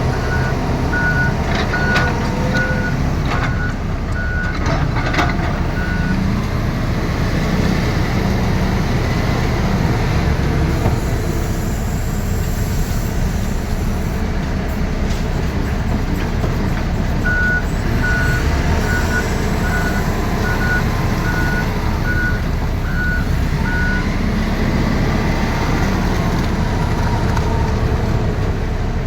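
Heavy construction machine's diesel engine running steadily under load, with its reversing alarm beeping about once every 0.8 s for the first six seconds and again for about seven seconds in the second half.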